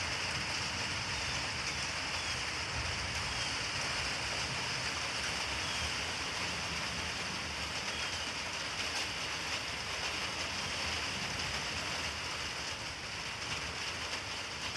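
Nearly continuous low rumbling of distant thunder over a steady hiss of rain.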